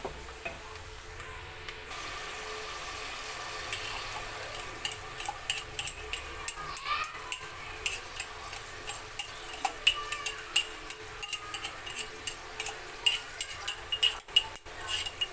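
Onion, tomato and green chillies frying in oil in an aluminium pot, a steady sizzle. From about five seconds in, many quick light clinks of a metal spoon working in a glass jar over the pot.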